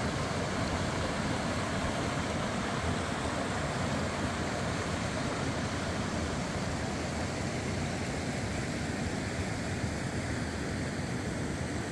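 Steady rushing of a mountain creek, an even wash of water noise with no breaks.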